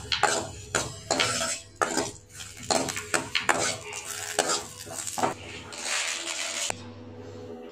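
Steel spoon scraping and clinking against a metal pan while stirring green chillies as they roast: an irregular run of knocks and scrapes.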